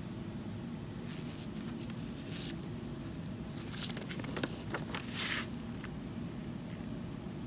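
Rustling and scraping handling noises with a few sharp clicks, in two spells about a second in and again around four to five seconds in, over a steady low hum.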